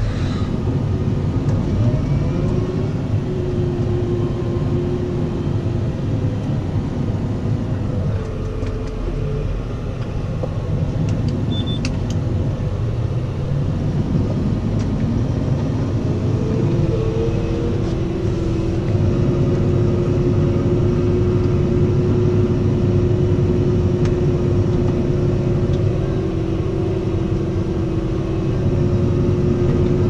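Fendt 720 tractor's six-cylinder diesel running steadily under ploughing load, heard inside the cab: a continuous low drone with a transmission whine that shifts in pitch partway through and then holds level.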